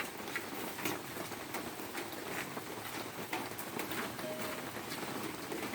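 Rain falling steadily, a constant hiss with scattered sharp ticks of drops.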